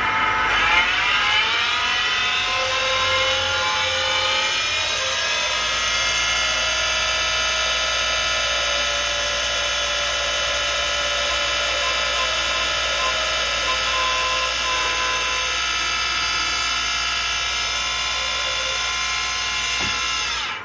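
Small wood lathe spinning a walnut and green-inlay pen blank on a mandrel while it is worked by hand: a loud, steady whine that drops in pitch over the first few seconds, then holds, and cuts off abruptly at the end.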